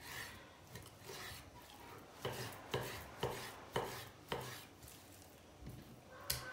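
Kitchen knife cutting raw chicken breast into cubes on a wooden cutting board: soft slicing strokes, then a run of knife knocks on the board about twice a second in the middle.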